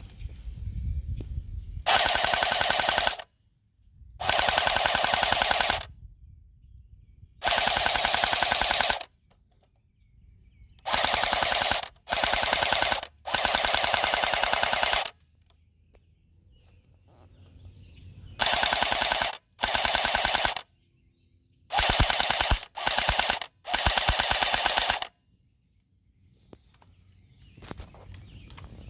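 Airsoft MG42 replica firing full-auto in about eleven short bursts of one to two seconds each, a very fast, even rattle of shots. The bursts come in groups separated by pauses of a few seconds.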